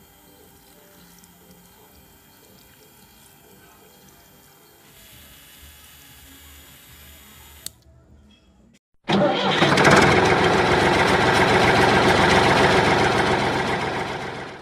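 A faint steady hum, then after a short break about nine seconds in, a small electric motor whirring loudly and steadily close to the microphone.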